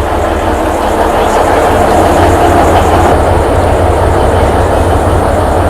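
Alishan Forest Railway train running on its narrow-gauge track: a loud, steady rumble with wheel-on-rail clatter.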